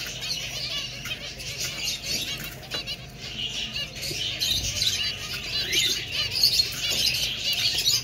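A flock of zebra finches calling all at once: many short, nasal, beeping calls overlapping into a constant chatter that grows louder in the second half.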